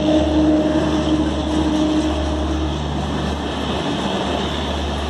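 A WAP-4 electric locomotive and its LHB coaches passing close by on the near track while slowing, with steady wheel-on-rail rumble. A steady humming tone from the passing locomotive stops about two and a half seconds in, leaving the coaches rolling past.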